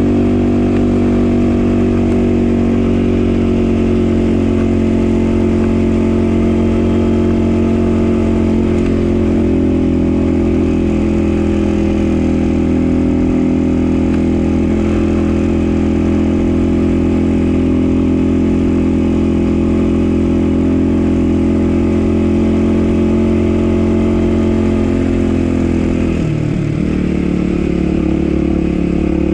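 Dirt bike engine running at a steady, moderate speed while riding. Near the end the engine note dips briefly, then carries on.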